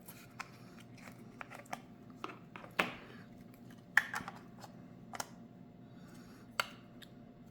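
Hands handling a plastic battery charger and camera batteries: scattered light clicks and taps, with a few sharper knocks, as the batteries are tried in the charger.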